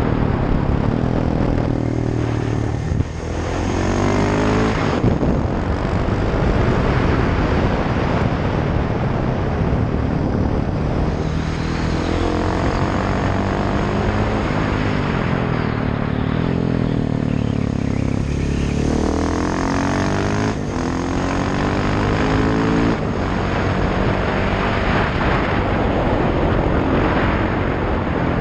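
KTM 690 SMC R's single-cylinder engine through a Sebring exhaust with no dB-killer, ridden hard. The pitch climbs through the gears several times, with brief dips at each shift and easing off in between.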